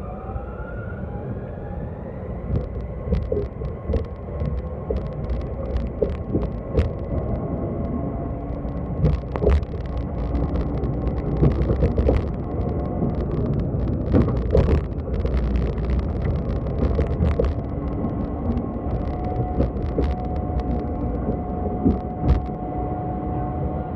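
Fukui Railway F1000 'FUKURAM' low-floor tram running on street track, heard from inside the car: a low rumble with a steady electric motor whine at a level pitch, and many sharp clicks and knocks of the wheels over the rails, busiest in the middle.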